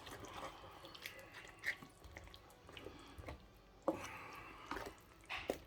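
Faint bubbling and small pops from a pot of tomato chicken stew, with a few light knocks about four and five and a half seconds in.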